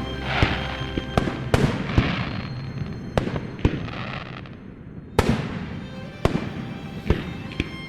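Aerial fireworks bursting: sharp bangs about once a second, some followed by crackling, with music playing faintly underneath.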